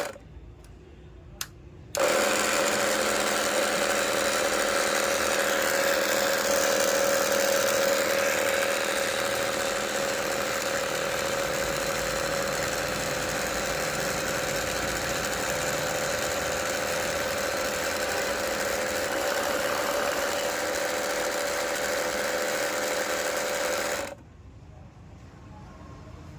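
Battery sprayer pump's small electric motor running with an excessively loud, steady whine, starting about two seconds in and switched off near the end. The noise comes from a worn small bearing inside the motor shaft.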